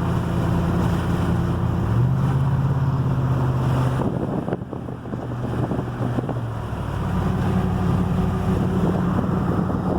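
A vehicle's engine running while driving, with steady road and wind noise. The engine hum shifts in pitch a few times: it steps up about two seconds in, drops around four seconds, and rises again about seven seconds in.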